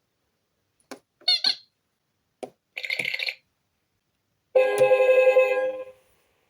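A LeapFrog Scout and Violet 100 Words talking book plays its electronic fun-sound effects through its small speaker as pictures are touched. A click and a short warbling whistle come first, then another click and a short buzzy jingle, then a longer ringing chime, the loudest of the three.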